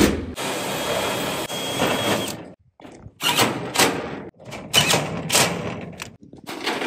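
Cordless impact driver running for about two seconds as it drives a screw into 29-gauge corrugated metal sheet, with a thin steady motor whine, then several short, sharp knocks.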